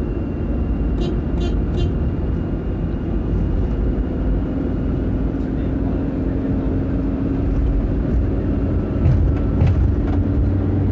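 Engine and road noise of a moving vehicle heard from inside the cabin: a steady low rumble, with three short clicks about a second in.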